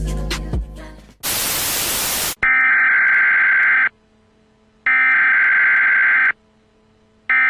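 Background music ends about a second in, followed by a burst of static and then three long, identical electronic alert beeps separated by short silences, an emergency-broadcast-style warning tone.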